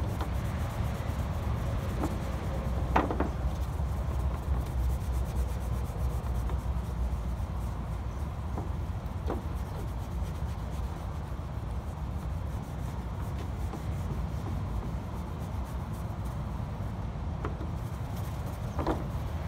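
Cloth dampened with acetone rubbing back and forth over a stainless steel sheet, wiping off adhesive residue left by sun-baked protective film, with a few light ticks. A steady low rumble runs underneath.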